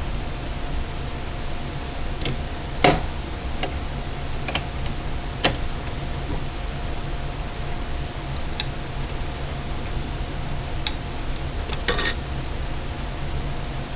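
Scattered light clicks and taps of computer parts being handled and fitted, about eight at irregular intervals, the loudest about three seconds in, over a steady low hum.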